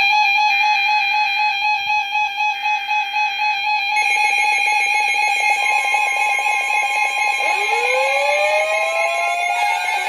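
Emergency alert tones, several sounding at once. A steady tone runs throughout, with a pulsing pattern over it in the first few seconds. More tones join about four seconds in, and rising sweeping tones come in near the end.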